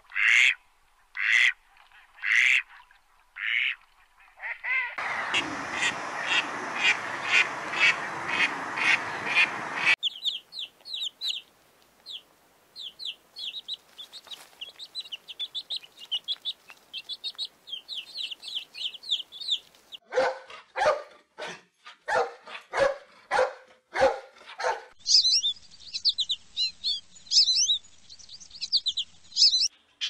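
A run of different bird calls: ducks quacking in short loud calls, then a dense stretch of repeated calls over a noisy background, then about ten seconds of high, thin peeping from goslings, then another run of strong repeated calls and high chirping near the end.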